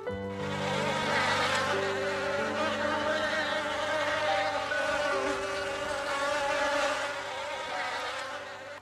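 Insects buzzing in a dense, steady drone that fades near the end, over soft background music.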